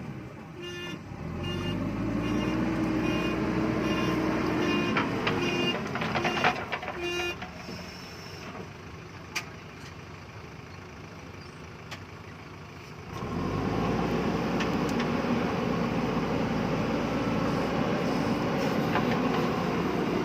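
JCB backhoe loader's diesel engine working, its pitch rising and falling under load over the first few seconds, with a run of short repeated beeps. It drops to a quieter run in the middle, then picks up again about two-thirds of the way through and runs steadily.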